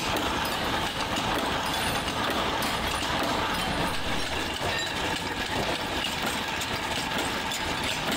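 Steady din of factory machinery running, a dense even mechanical noise with faint small ticks over it.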